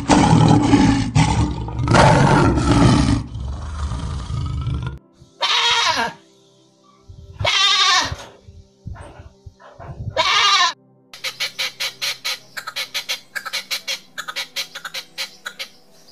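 A lion roaring and grunting for about the first five seconds. Then a goat bleats three times, a couple of seconds apart. Near the end comes a quick run of short, sharp calls, about four a second, from a quail.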